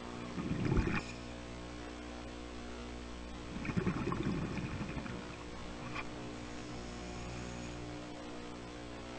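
Steady low hum underwater, broken twice by a scuba diver's regulator breathing: a short rush of bubbles about half a second in and a longer one around four seconds in.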